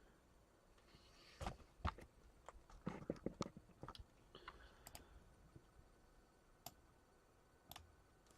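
A quiet run of sharp clicks and light knocks, about a dozen in a cluster early on, then two single clicks near the end: small objects being handled on a desk.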